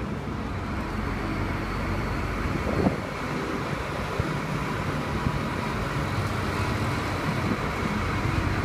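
Steady rumble and hiss of passing street traffic, with a few faint knocks.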